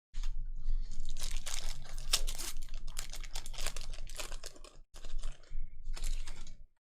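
Crinkling and tearing of a trading card pack's foil wrapper being ripped open, a dense run of sharp crackles with a couple of short breaks near the end.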